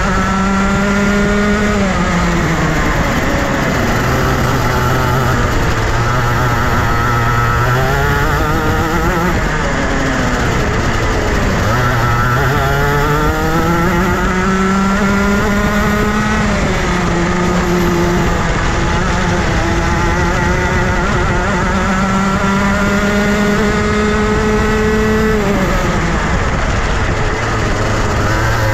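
Rotax Junior 125cc single-cylinder two-stroke kart engine, revving up steadily and then dropping back sharply, about five times over, as a kart does lapping a circuit.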